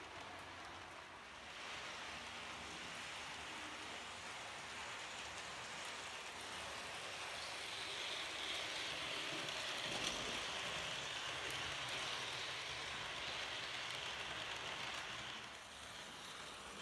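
H0 model train, a Märklin model of a DB class E18 electric locomotive hauling express coaches, rolling past with a steady hiss of wheels on the rails. The sound swells about a second and a half in, is loudest as the train passes close, and drops off near the end.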